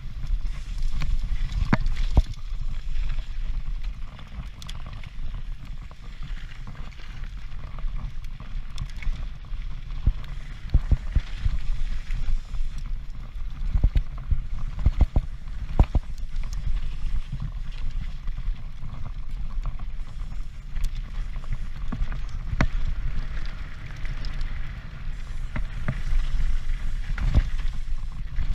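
Transition Patrol full-suspension mountain bike descending fast over rough ground: steady wind rumble on the camera microphone with tyre noise and frequent sharp clatters and knocks from the bike over rocks and bumps.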